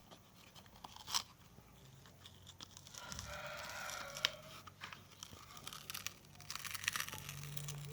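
Handling noise from a device being taken apart: scattered sharp clicks and knocks with rustling and crinkling. A squeaky scrape comes about three seconds in and lasts around a second and a half, over a faint low hum.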